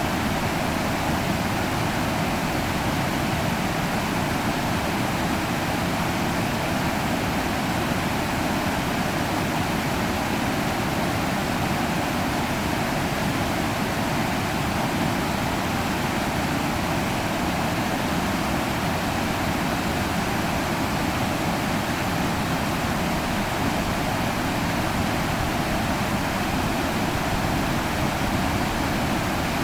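River water rushing steadily, an even, unbroken rush of flowing water.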